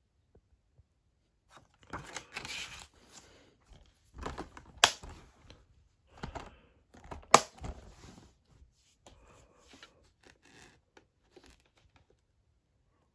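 Handling of a plastic DVD case and its paper insert: rustling and plastic clatter, with two sharp clicks about two and a half seconds apart as the case is snapped shut and handled, the second the louder.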